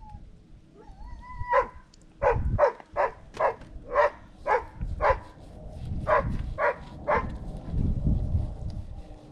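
A dog whining briefly, then barking in a run of about a dozen short, sharp barks, roughly two a second, with a short break partway through.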